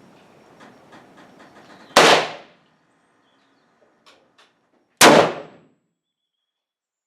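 Two gunshots about three seconds apart, each with a short echoing tail, with a few faint clicks before the first. The companion's comment afterwards puts the shooter's pull straight through the trigger's long take-up in one go.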